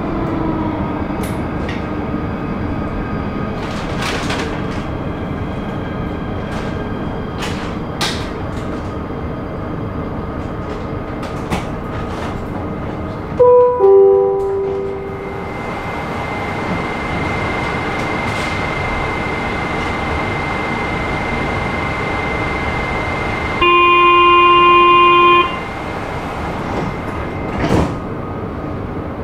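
Interior of an Athens metro carriage: the steady hum and rumble of the train, with a falling two-note electronic chime about halfway through. Near the end comes a steady electronic warning tone lasting about two seconds, then a short thud, as at the doors of a station stop.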